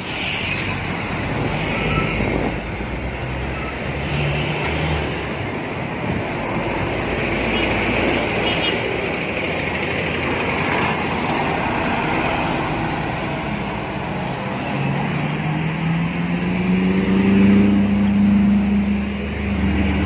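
Heavy road traffic, with diesel trucks and a double-decker coach passing close by. From about fifteen seconds in, a heavy vehicle's engine rises in pitch as it accelerates away.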